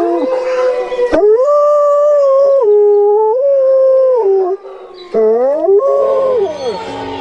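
A dog howling in long drawn-out notes whose pitch glides and steps up and down, with short breaks about a second in and about five seconds in.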